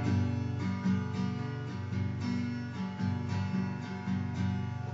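Acoustic guitar strumming chords in a steady rhythm, an instrumental passage between sung lines of a band's song.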